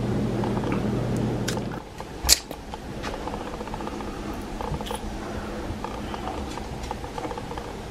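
A steady mechanical hum cuts off about two seconds in, followed by a single sharp click, then faint scattered clicks and handling noise.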